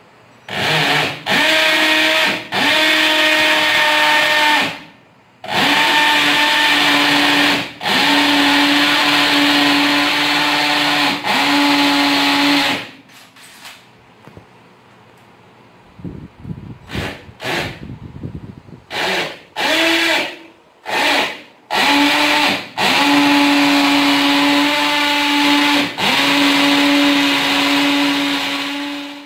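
Electric drill running in bursts of a few seconds, its pitch rising as each burst starts while it drills in to mount window-blind brackets. Midway it pauses, then gives several short blips before running in long bursts again.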